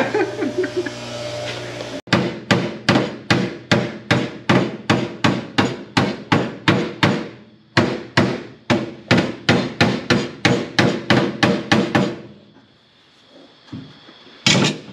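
Hammer blows on the MG Midget's steel bodywork, a steady run of sharp strikes about three a second with a brief pause midway. The strikes stop about twelve seconds in, and one last blow comes near the end.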